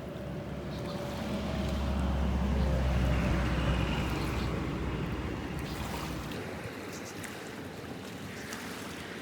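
Wind rumbling on the microphone over water washing against a rocky shore. The low rumble swells through the first half and drops away sharply about six seconds in.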